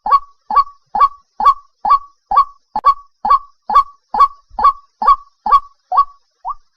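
White-breasted waterhen calling, one short rising note repeated evenly about twice a second.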